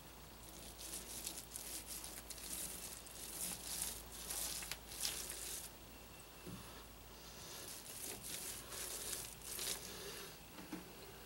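Small paint roller working resin into fiberglass cloth on plywood, a faint scratchy hiss of strokes in two spells with a pause of about two seconds between.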